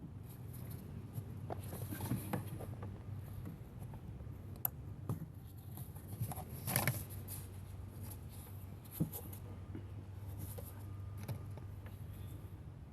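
Scattered light clicks and taps of a hand tool and small metal parts being handled while working on an idle air control valve, over a low steady hum.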